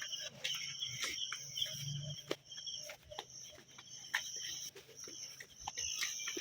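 Insects, likely crickets, chirping in a steady high trill, with scattered sharp clicks and a faint low hum.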